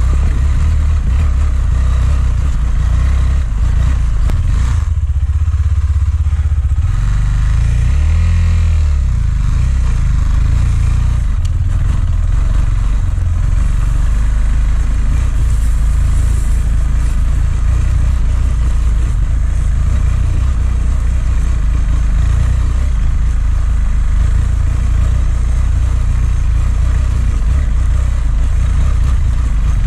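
A motorcycle engine running under a heavy low rumble, its note gliding up and down briefly about eight seconds in.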